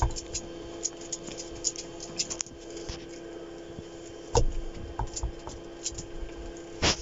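Small knife cutting and scraping through a pumpkin's rind in short, scratchy strokes, with two louder knocks, one about four seconds in and one near the end, over a steady low hum.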